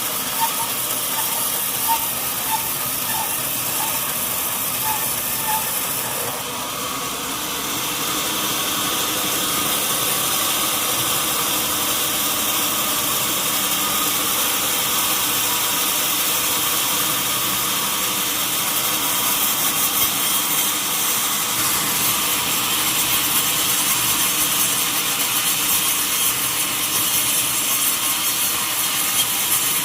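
Sawmill saw running and cutting through a long mahogany log, a steady sawing noise that dips briefly about six seconds in and grows a little louder in the second half.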